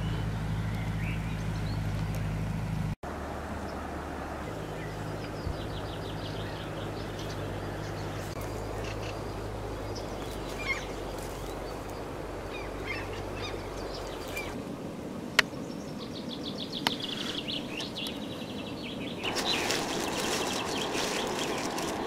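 Small songbirds chirping and giving fast trills over a steady low rumble that fades out a little past the middle. Near the end a broad rushing noise comes in.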